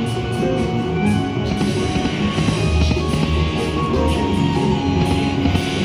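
Slot machine's bonus-round music playing on through a hold-and-spin respin feature as the reels spin and stop.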